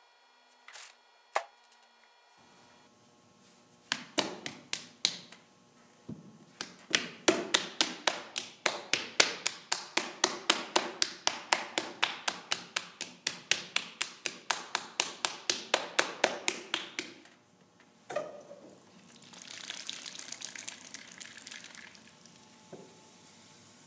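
Rapid, even tapping, about three to four taps a second, that keeps up for some thirteen seconds and then stops. A short hiss follows near the end.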